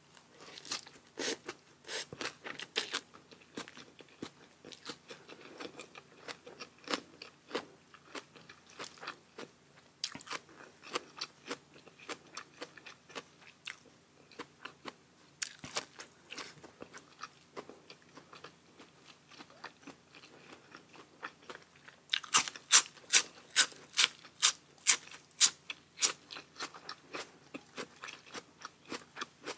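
Close-up chewing and crunching of food, with many small wet crunches. About two-thirds of the way in comes a run of loud crisp crunches, two or three a second, for a few seconds.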